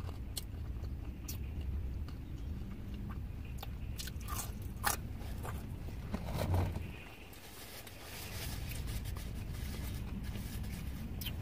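Close-up chewing and biting on well-done potato wedges, with scattered sharp crunches and a louder bite about six seconds in, over a steady low hum.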